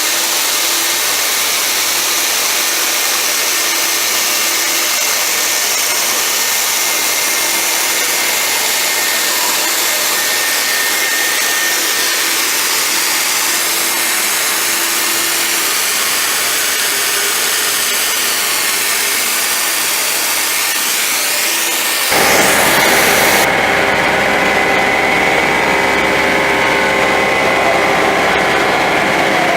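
CNC machine running and cutting an edge profile: a steady, loud machining noise with a high whine. About 22 seconds in the sound changes abruptly, becoming louder and deeper.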